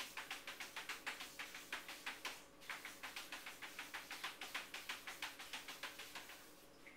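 A cat's claws scratching rapidly at a refrigerator door, about five strokes a second, with a brief pause a little over two seconds in, stopping near the end.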